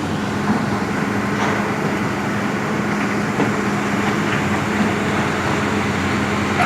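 Heavy diesel engine of construction machinery running steadily with a constant low hum, with a few faint knocks.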